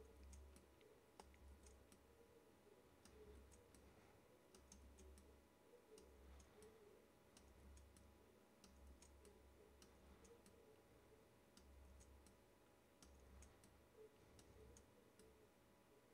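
Near silence with faint, scattered clicks of a computer mouse and keyboard as the frames are stepped and an on-screen mask is dragged into place, over a faint low hum that comes and goes.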